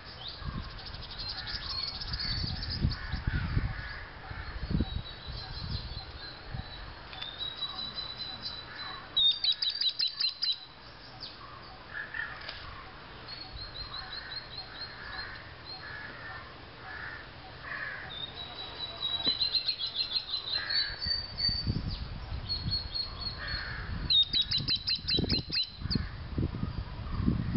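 Indian palm squirrels calling: repeated rapid trains of sharp, high-pitched chips, each run lasting about a second.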